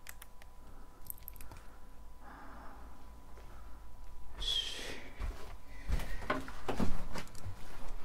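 Clicks and rustling of things being handled, a short scraping squeak about halfway, then knocks and thuds that grow louder near the end, like footsteps and bumps on a hard floor.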